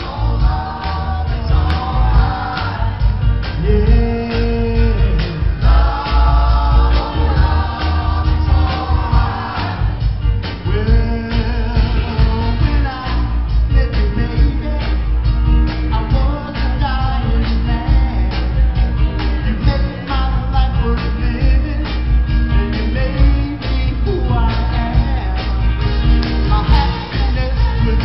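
Male soul vocal group singing live, lead and harmony voices over a full backing band with drums, guitar and heavy bass.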